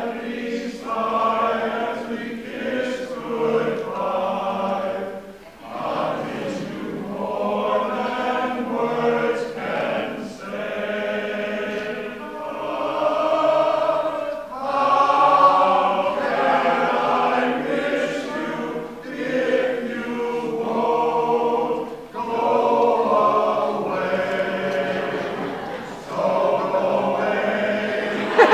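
Men's chorus singing in harmony under a conductor, in phrases with short breaks between them.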